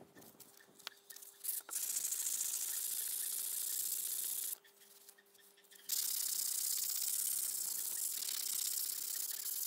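Sandpaper rubbed by hand over a steel chair hinge, scouring off old paint toward bare steel: two long spells of a steady, high scratchy hiss with a pause of about a second between them, after a few light clicks at the start.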